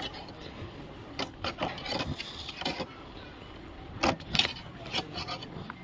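Metal wire tool clicking and scraping against the car's interior door trim and lock as it is worked in through the door gap to open the locked door. The clicks are short and irregular, with the loudest pair about four seconds in.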